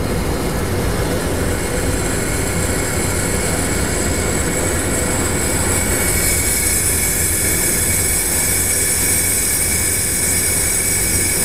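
Steady hiss of residual refrigerant pressure escaping through the open oil-drain valve of an AC refrigerant recovery machine into its oil catch bottle, over a steady low hum. The hiss grows brighter about halfway through; it lasts until the system has no pressure left.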